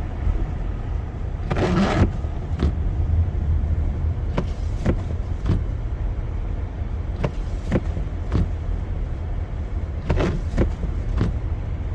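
Car driving on a snowy highway, heard inside the cabin: a steady low rumble of engine and tyres, with short sharp ticks or knocks that come in small groups every few seconds.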